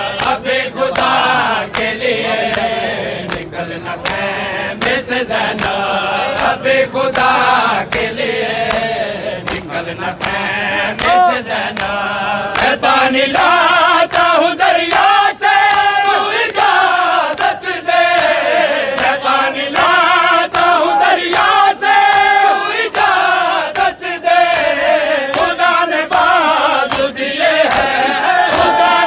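Group of men chanting a noha, a Shia mourning lament, in unison, over the crowd's chest-beating (matam), a steady beat of slaps. The chanting grows louder about halfway through.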